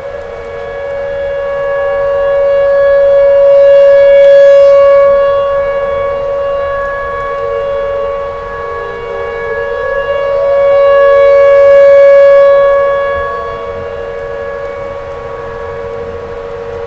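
Tornado warning siren wailing on a steady pair of close tones, swelling louder and fading back twice, with a brief upward slide in pitch before each swell.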